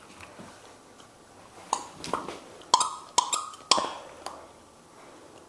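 A rubber squeaky toy squeezed in a puppy's jaws, giving a quick series of short, sharp squeaks, about six of them between one and a half and four and a half seconds in.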